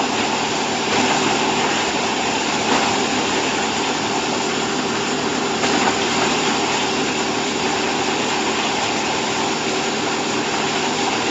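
Hydraulic bagging baler running steadily, an even mechanical hum of motor and pump. Two brief knocks come about a third and halfway in.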